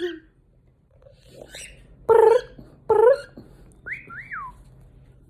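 Male cockatiel calling: two loud, harsh notes about two and three seconds in, then a wolf whistle near four seconds that rises and then falls.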